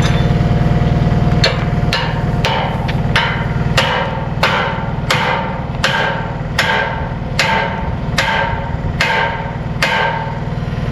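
A hammer driving a steel wedge, a steady series of about fifteen ringing metal-on-metal blows, roughly three every two seconds, starting about a second and a half in. Underneath is the steady low drone of the skid steer's engine idling.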